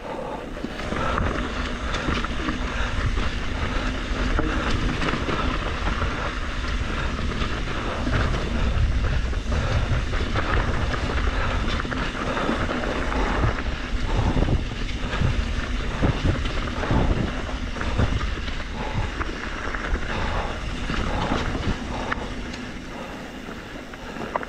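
Trek Slash 7 mountain bike riding fast down rough singletrack: a steady rush of wind on the GoPro microphone under the rumble of tyres on dirt and rock, with frequent knocks and rattles from the bike. It eases off near the end.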